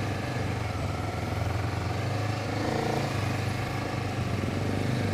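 Honda CBR250RR's parallel-twin engine running steadily while the bike creeps through traffic, under even road and wind noise.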